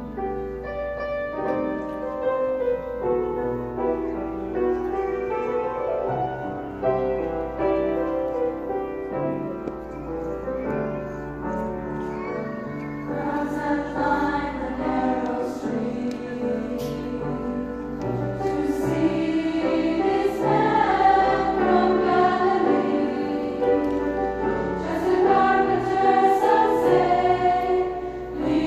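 Large mixed choir singing a sacred song in many voices, growing louder about two-thirds of the way through.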